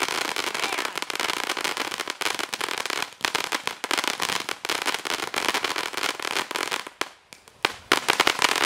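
Ground fountain firework spraying sparks with a dense, continuous crackle of sharp pops. The crackle thins out about seven seconds in, then a few louder single pops go off.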